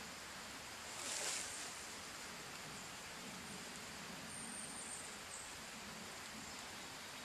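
Steady hiss of rain falling in the woods, with a brief rustle of brush or leaves about a second in.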